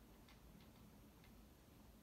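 NuTone Verandah II ceiling fan with a spinner motor, running on medium speed and very faint, with light ticking about twice a second.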